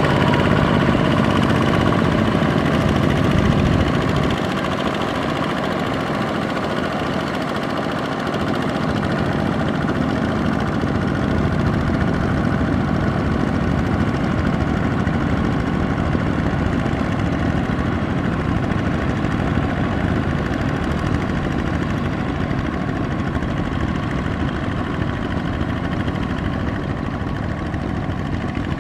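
Single-cylinder diesel engines of two-wheel power tillers, a Kubota ZT155 among them, running steadily under load as the tillers pull cultivators through a flooded rice paddy. The sound is slightly quieter after about four seconds.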